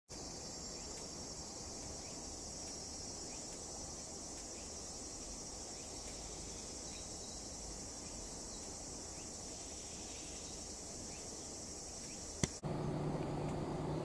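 A steady, high-pitched chorus of insects. About twelve and a half seconds in, a sharp click, then it gives way abruptly to a louder, lower steady hum.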